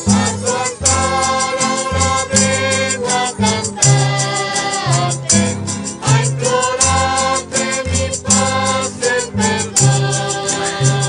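A small group singing a religious song to Saint Michael together, accompanied by strummed acoustic guitars, with bass notes alternating underneath in a steady rhythm.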